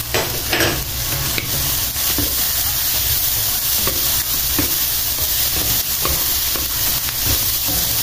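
Diced Spam, carrots, onion and leeks sizzling in oil in a wok, stirred with a wooden spatula that scrapes and taps against the pan now and then.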